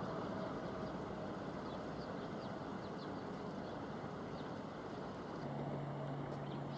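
Steady low rumble of a train running slowly in the distance through the station yard, with a few faint high chirps over it. A steady low hum joins about five seconds in.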